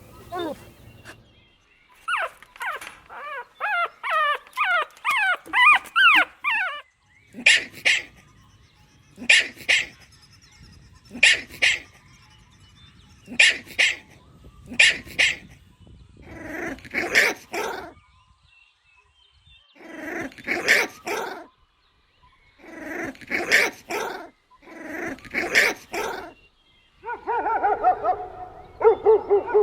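Golden retriever puppy whining in a rapid string of high, wavering yelps, then barking in sharp doubled barks about every two seconds, with longer barks after. Near the end it breaks into a drawn-out, wavering howl.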